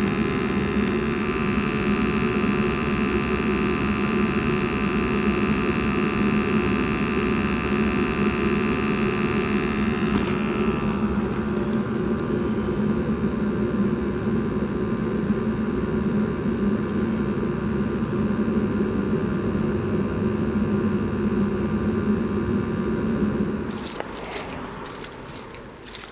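A gas pack (package heating and cooling unit) running steadily in heating, a constant hum with a held tone. About three-quarters through, the hum falls away and footsteps rustle through dry leaves and grass.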